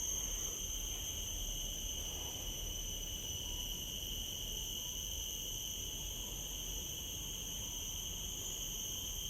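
Insects chirring in a steady, continuous high-pitched drone that never pauses.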